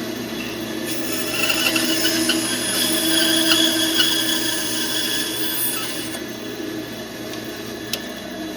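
Band saw running steadily, its blade cutting through wood from about a second in until about six seconds in, then running free again; a single click near the end.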